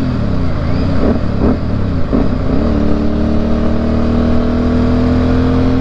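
Yamaha Byson motorcycle's single-cylinder engine running under way. Its pitch dips and climbs several times in the first few seconds, then pulls steadily with a slowly rising pitch.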